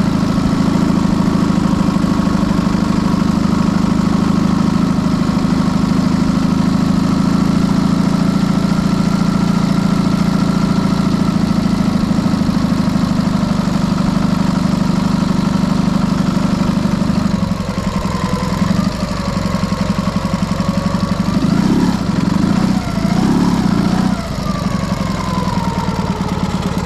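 Dnepr motorcycle's flat-twin engine running at a steady, even note. About two-thirds through the note drops and turns uneven, with a couple of short revs near the end.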